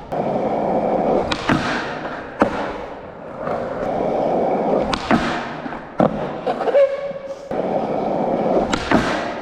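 Skateboard wheels rolling on concrete in three stretches, with several sharp clacks of the board striking the ground and the bench.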